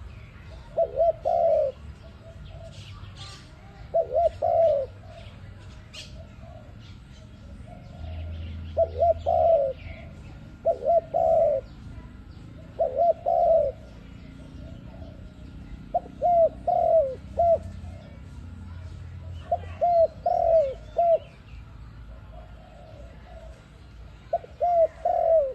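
Spotted dove (tekukur) cooing: about eight phrases of two to four short coos each, a few seconds apart, with faint chirps of small birds behind.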